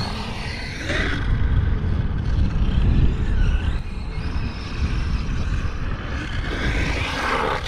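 Arrma Mojave 6S EXB RC truck driving hard over rough dirt: its brushless electric motor whines up and down over the noise of the tyres on the ground. Heavy wind buffets the microphone.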